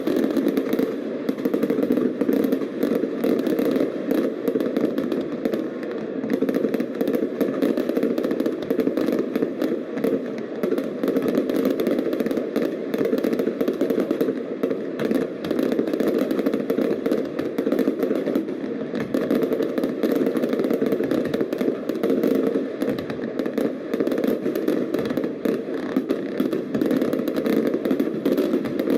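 Aerial fireworks bursting in a dense, continuous barrage of bangs and crackles with no pause between them.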